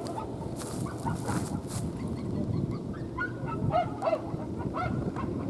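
Waterfowl honking: about eight short calls at irregular intervals, over a steady low background noise.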